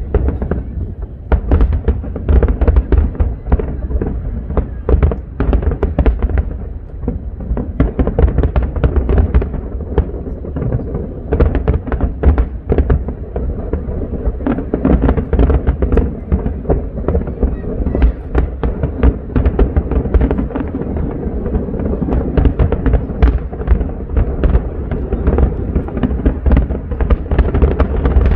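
Fireworks display: a rapid, unbroken series of aerial shell bursts, several bangs a second over deep booms.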